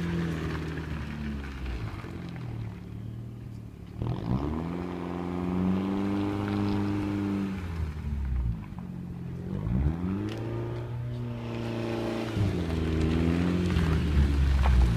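Straight-piped Audi A4 B5 1.8-litre turbo four-cylinder engine under way. The engine note climbs as the car accelerates about four seconds in and again about ten seconds in, then drops back off between the pulls.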